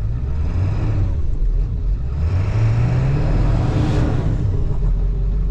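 Truck engine running under load on an icy road, revving up with a rising pitch about two seconds in, joined by a rush of noise as it climbs. The driver is testing how much traction the tyres have on the ice.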